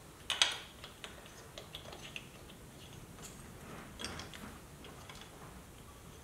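Small metal clicks and ticks of air filter standoffs being handled and threaded by hand into an air cleaner backing plate, with two sharper clicks about half a second in and lighter ticks after.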